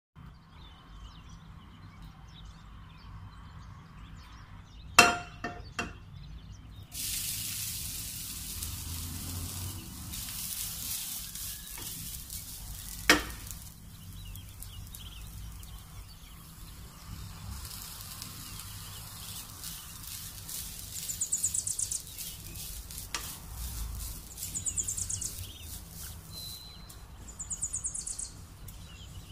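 Shredded coconut frying in a nonstick pan, sizzling steadily from about seven seconds in, while a wooden spatula stirs and scrapes it. Two sharp knocks come before and after the sizzling starts, about eight seconds apart.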